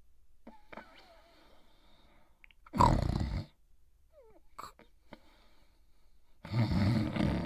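Snoring in deep sleep: two loud snores, the second about three and a half seconds after the first and a little longer, with faint breathing between.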